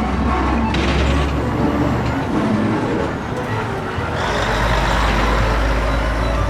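Heavy truck engine sound, steady and low, for the toy construction vehicles; the sound shifts lower about four seconds in.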